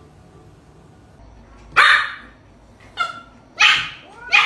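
Puppy barking: four short barks, the first about two seconds in.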